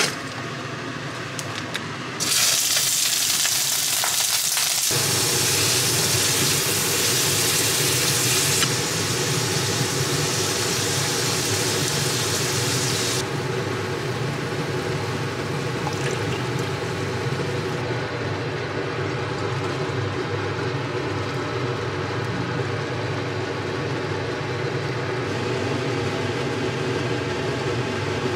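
Shrimp frying in oil in a stainless steel pan, a loud sizzling hiss, over a steady humming drone. The sound changes abruptly several times, loudest in the first half.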